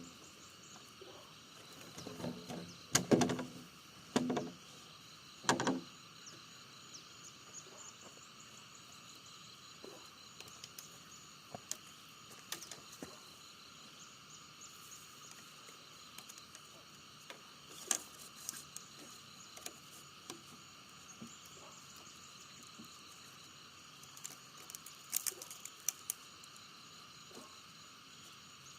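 Steady drone of insects in the background, with three loud knocks in quick succession about three to six seconds in and scattered lighter clicks and taps after.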